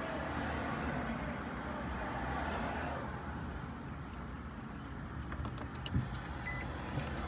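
Steady car-interior rumble of a running vehicle, with a low hum underneath. There is a soft knock about six seconds in, and a short electronic beep just after it.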